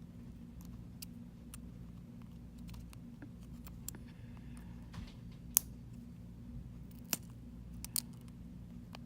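Small sharp clicks and taps of a repair tool working at an iPhone XR's earpiece and sensor assembly to pry it loose, with three louder clicks in the second half, over a steady low hum.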